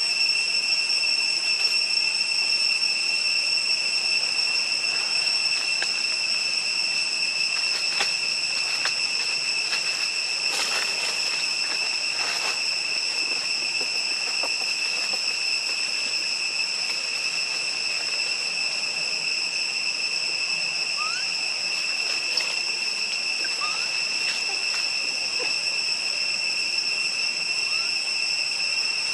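Steady, high-pitched insect drone, two pitches held without a break. A few faint rustling clicks come about a third of the way in.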